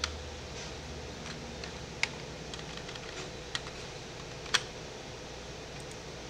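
Computer keyboard and mouse clicks while entering spreadsheet data: a handful of scattered sharp clicks, the clearest about 2 seconds and 4.5 seconds in, over a steady low hum.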